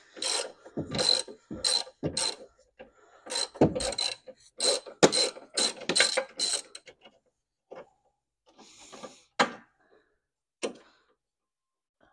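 Hand ratchet and socket clicking in repeated quick strokes, about twice a second for the first seven seconds, as a battery tray bolt that has just broken free is backed out; then a few scattered clicks and a short rustle.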